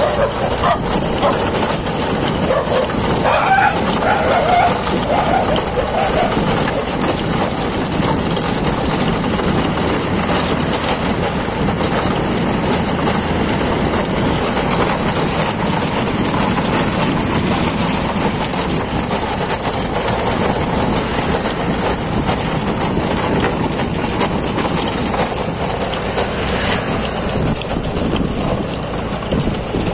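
Bullock cart's metal-rimmed wooden wheels rolling on asphalt, a steady rumble and rattle, with the cart's wooden body shaking along.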